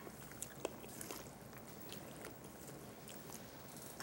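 Metal spoon stirring a wet, chunky stew of meat and olives in a metal pot: faint squelching with scattered light scrapes and clicks against the pot.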